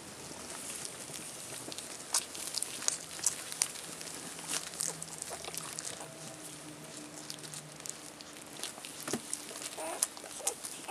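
Newborn rough collie puppies suckling at their mother, making many small wet clicking and smacking sounds, with a faint squeak near the end.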